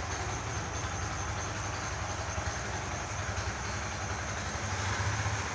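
Steady low machine hum under an even hiss, with no distinct events.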